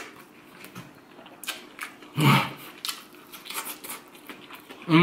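Close-miked chewing of a mouthful of burger: scattered wet mouth clicks and smacks, with a short "mm" hum from the eater about two seconds in.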